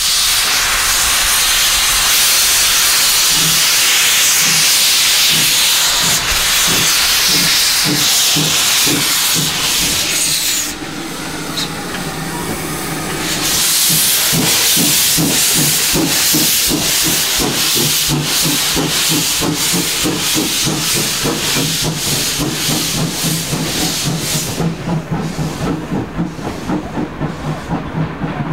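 0-4-0 saddle-tank steam locomotive starting away with a train: a loud steam hiss, with the cylinder drain cocks open, under exhaust beats that come faster and faster as it gathers speed. The hiss dies away about eleven seconds in, and the beats carry on as the coaches roll past.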